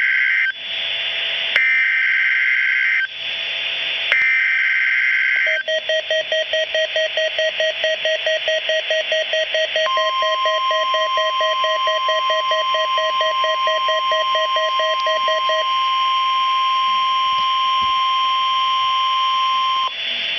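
NOAA Weather Radio weekly test alert heard through a Midland WR-300 weather radio: the end of one burst and then two more harsh buzzing bursts of SAME digital header tones, each about a second and a half. These are followed by the receiver's fast pulsing alarm beep. About ten seconds in, the steady 1050 Hz Weather Alert Tone joins and holds for about ten seconds, with the beeping stopping partway through.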